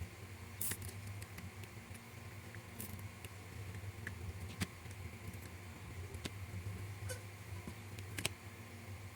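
Scattered sharp clicks and taps of small scale-model roof-rack parts being handled and fitted, several seconds apart, over a steady low hum.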